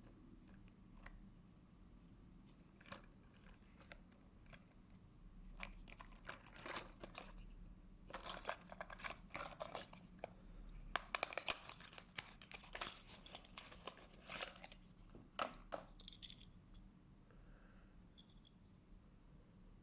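Toy packaging being opened by hand: irregular crinkling and tearing of packaging with small clicks. It starts about five seconds in, is busiest and loudest in the middle, and dies away a few seconds before the end.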